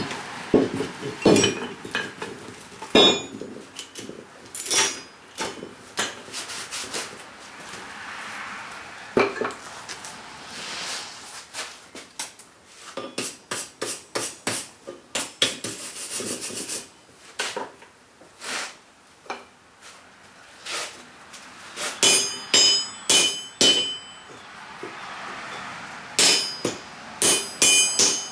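Blacksmith's hand hammer striking hot steel at the anvil and swage block, irregular blows shaping the cupped end of a hide scraper. About 22 seconds in and again near the end come quick runs of bright, ringing strikes.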